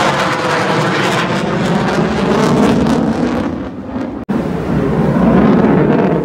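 Military jet aircraft passing overhead: loud jet engine noise that eases a little, drops out for a split second about four seconds in, then swells again.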